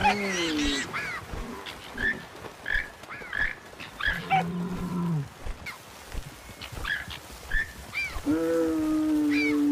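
Animals calling: three long, low calls of about a second each, the first two falling in pitch at the end, with many short, high chirps in between.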